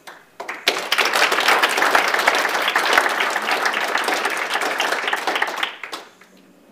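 Audience applauding: many hands clapping together, starting about half a second in and dying away after about five seconds.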